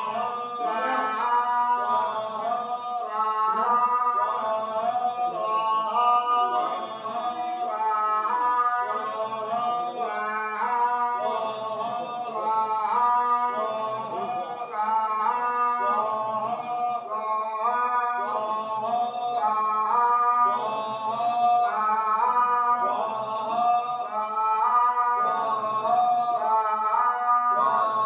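Singing of a chant-like devotional melody in short phrases that repeat about every two seconds, without a break.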